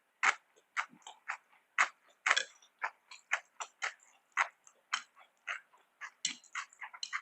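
Close-miked eating sounds: a quick, irregular run of wet chewing clicks and mouth smacks, several a second.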